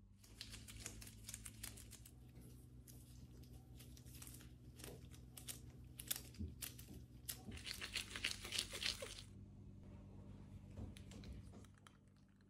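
Gloved hands working soft bagel dough: crinkling of disposable gloves and small sticky tearing and squishing sounds as the dough is pinched around cream cheese cubes and rolled into balls. There is a denser run of crackling about eight seconds in, over a faint low hum.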